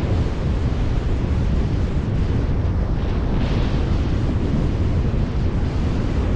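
Strong wind buffeting the microphone in a steady, heavy rumble, with ocean surf washing underneath.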